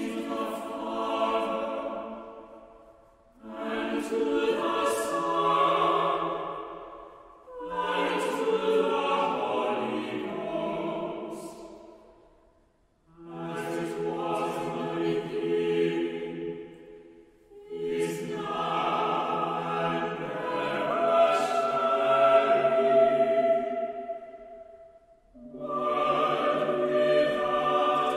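Small mixed choir of men's and women's voices singing in short phrases, each lasting a few seconds and separated by brief pauses for breath.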